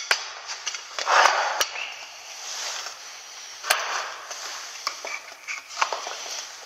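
Hoses and cables being handled and pulled across a concrete floor: scraping and rustling, with a few sharp clicks and knocks scattered through.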